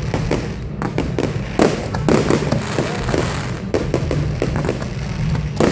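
Fireworks display: a rapid, continuous barrage of shells bursting, dense bangs and crackles overlapping, with sharper bangs about a second and a half in and at the very end.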